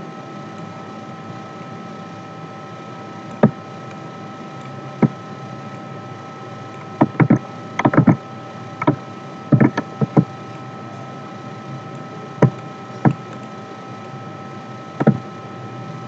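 Computer mouse clicks and keyboard key presses, scattered single clicks with a quick run of them between about seven and ten seconds in, over a steady electrical hum with a faint constant tone.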